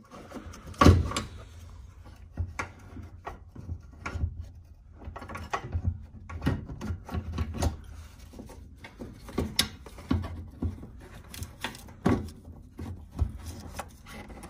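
A fuel pump assembly being fitted back into a 1995 Honda Civic's fuel tank by hand, its metal mounting plate knocking, clicking and scraping against the tank opening in irregular strokes. The sharpest knock comes about a second in.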